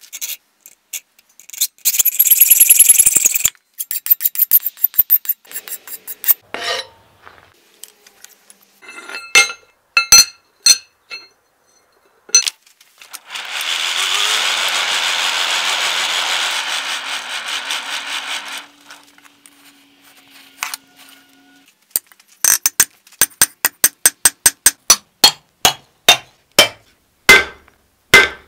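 A hacksaw rasps back and forth through a steel knife tang. Then comes a steady rush of air from a coal forge's blower for about five seconds. Near the end, a hammer strikes hot steel on an anvil in quick, evenly spaced blows, about three a second.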